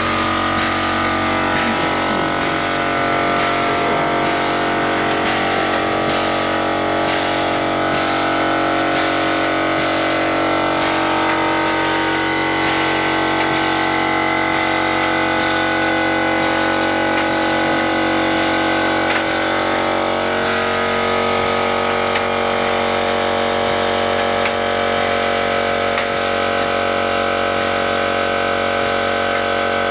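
Pneumatic drive of a Pneumobil compressed-air vehicle running steadily on a test stand: a whine of several tones over a steady hiss, with faint regular ticking in the first half. Its pitch drifts slowly and shifts about twenty seconds in.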